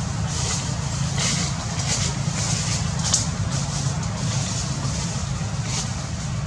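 A steady low mechanical rumble, like a motor vehicle engine running, under a high hiss that swells and fades several times.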